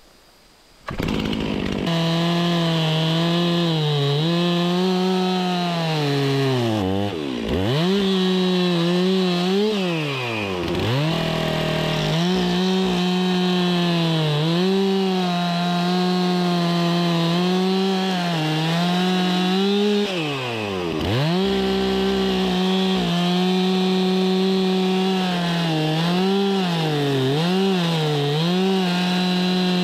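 Two-stroke chainsaw starting up about a second in, then running at full throttle while cutting into a log. The engine note dips as the chain bites, and three times it drops back toward idle when the throttle is released before revving up again.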